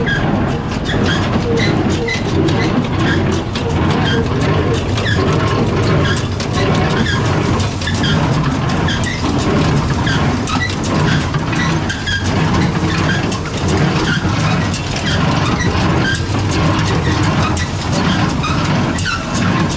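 Farm tractor running steadily, with frequent short clicks and small high squeaks from the machinery over the engine.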